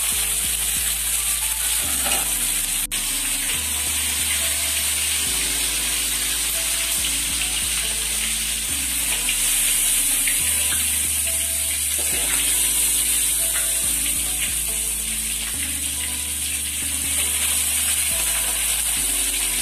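Sardines sizzling steadily as they fry in oil in a steel wok, turned now and then with a metal spatula. Soft background music with slow, changing bass notes runs underneath.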